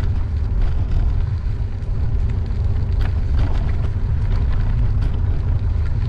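Steady low wind rumble on the microphone with tyre noise from a gravel bike rolling along a gravel trail, with faint scattered ticks.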